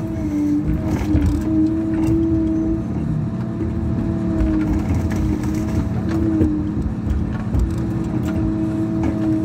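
Tigercat harvester's diesel engine and hydraulics running under load, a steady droning hum whose pitch dips and steps a few times as the boom and head move.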